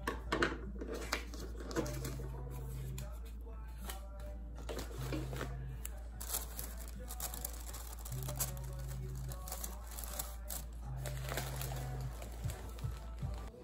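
Paper crinkling and rustling in many quick crackles as a flower bouquet is wrapped, over soft background music.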